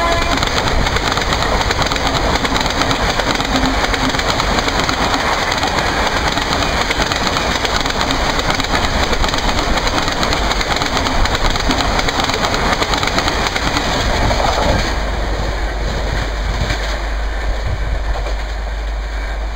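Coaches of a 24-coach express passenger train rushing past at speed: a steady rush of wheel, rail and wind noise with clickety-clack over the rail joints. About fifteen seconds in, the noise thins and drops a little, leaving a low rumble.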